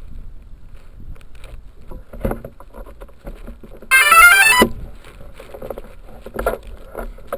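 A loud, brief run of electronic beeps in stepped pitches, lasting under a second, about four seconds in. Underneath is wind rumble on the microphone with a few soft knocks.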